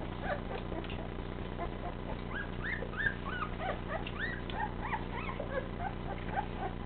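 Several young golden retriever puppies whimpering and squeaking, many short high calls overlapping one another and growing busier about two seconds in, over a steady low hum.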